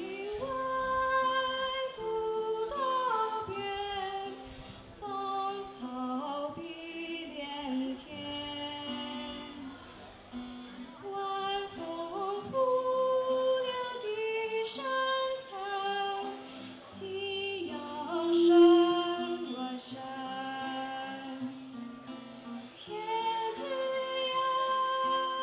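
A girl singing a solo melody into a microphone with acoustic guitar accompaniment, mostly long held notes; one held note about two thirds of the way through is the loudest.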